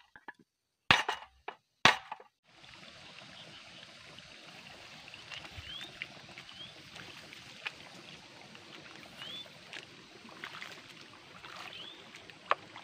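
A hammer striking the bent steel handlebar of a Quick E85 hand tractor, two sharp blows in the first two seconds, to straighten it after a rollover. Then a steady faint background hiss with a few short rising bird chirps.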